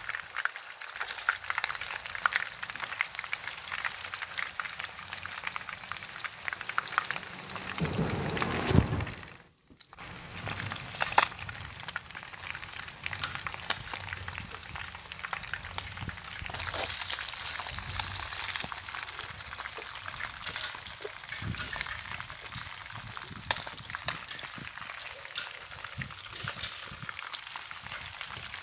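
Hot oil sizzling and crackling around two whole fish deep-frying in a pan, with frequent sharp pops of spattering oil. About nine seconds in there is a low rumble, then the sound cuts out for a moment before the frying resumes with a loud pop.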